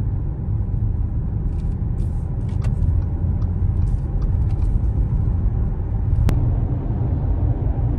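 Audi SQ5's V6 engine and tyres heard from inside the cabin as the SUV accelerates normally from about 25 to 40 mph: a steady low rumble with no unusual noise from the newly fitted stiffer transmission mount insert. A single faint click comes a little past six seconds in.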